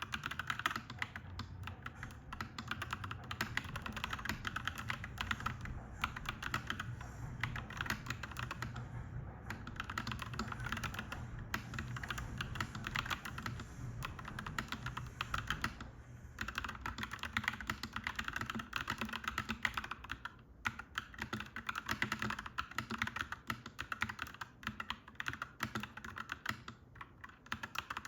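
Fast, continuous typing on a clacky mechanical keyboard, with brief pauses about sixteen and twenty seconds in, over a low steady background rumble.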